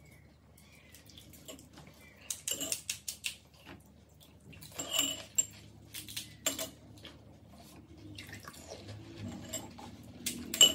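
Spoons clinking against bowls and bangles jingling as golgappa (pani puri) shells are cracked, filled and dipped in pani. It comes as scattered short clicks and clatters, and the loudest is a sharp click near the end.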